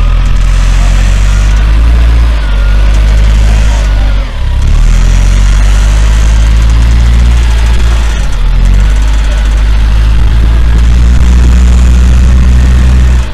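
Engine of a rough-terrain telehandler running steadily at close range, with a low, even note that dips briefly a few times. Faint voices of a work crew underneath.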